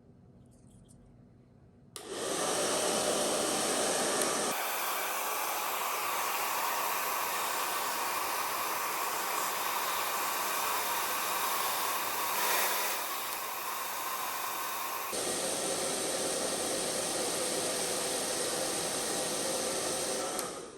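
A hair-dryer-type electric blower running steadily, switched on about two seconds in and cut off near the end, its tone shifting slightly twice along the way.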